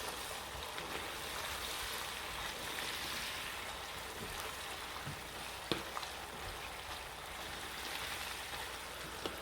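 Sauce with sautéed onion and bell pepper sizzling and bubbling in a hot wok as a steady hiss, with a couple of faint clicks.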